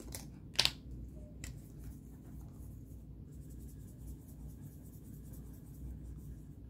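Three sharp clicks of plastic counter chips set down on a game sheet, then a Sharpie marker scratching softly on cardstock as a coin circle is coloured in.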